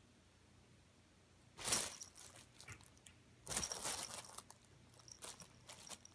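A cat scrambling in a fabric pop-up cat tent and pawing out of it: rustling, crinkling bursts, a loud one a little under two seconds in, a longer one about three and a half seconds in, then a few smaller ones near the end.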